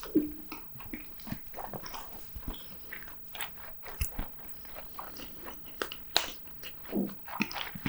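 Close-miked eating sounds: a person biting and chewing food, with irregular short wet clicks and smacks throughout, a louder bite just after the start and another about six seconds in.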